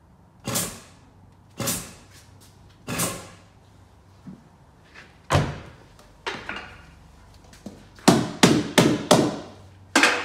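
Hammer blows on the Peugeot 208's sheet-steel sill while it is held under chain tension on the jig frame: about ten sharp, ringing strikes, irregularly spaced, with a quick run of four near the end.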